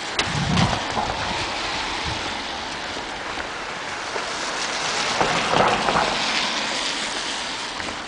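A car passing on a wet, slushy street: tyre hiss that swells about five to six seconds in and then fades.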